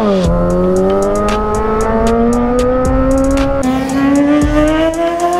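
Kawasaki Z900 sportbike engine revving high under hard acceleration. Its pitch drops sharply at the start, then climbs slowly and steadily, with a small step a little past halfway.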